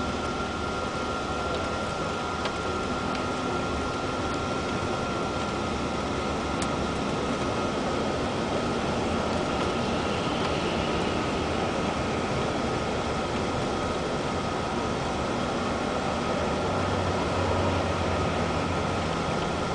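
Steady cabin noise inside a long-distance coach at highway speed: engine drone and road noise, with a thin steady whine throughout.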